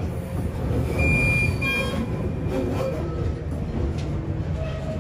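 1960s electric railcar running slowly into a station, heard from the driver's cab: a steady low rumble of motors and wheels. A short high beep sounds about a second in.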